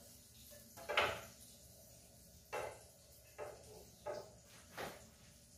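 Wooden spatula knocking and scraping against a non-stick frying pan, five separate knocks with the loudest about a second in.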